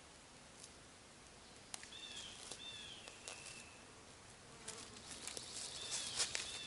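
Crackling and rustling of dry leaf litter and twigs underfoot and under hand as a person works at a shelter's corner and steps about, thickest and loudest about five to six and a half seconds in. A few short, high chirps sound in the background.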